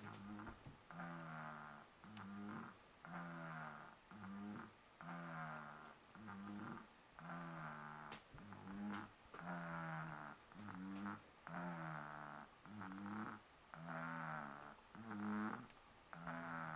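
Steady snoring from a sleeper: a buzzing snore on the breaths, repeating evenly about once a second without a break.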